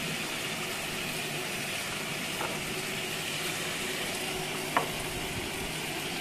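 Potato, onion and tomato pieces sizzling steadily in hot oil in a frying pan, with a light click about five seconds in.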